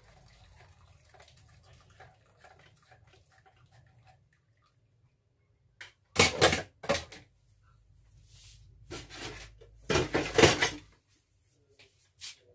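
Kitchen clatter of dishes and pans being handled, in a few loud bursts: one about six seconds in and a longer run between about nine and eleven seconds.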